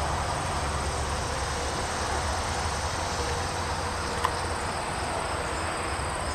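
Insects trilling high and steadily over a steady low rushing noise, with one faint click about four seconds in.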